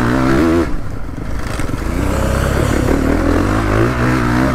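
Motocross bike engine heard from the rider's own bike at speed on a dirt track, revving up and down. The throttle comes off briefly about a second in, then the engine picks up and climbs in pitch again.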